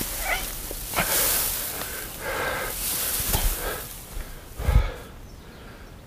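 Rustling with a few irregular dull thumps, typical of small square hay bales being lifted and dropped onto a stack.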